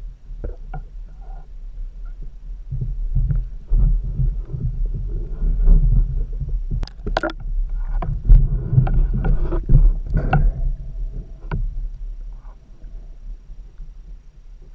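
Underwater sound of a free diver swimming and handling a speared dusky grouper: low rumbling water movement against the microphone, with a few sharp clicks and knocks, loudest from about seven to ten seconds in.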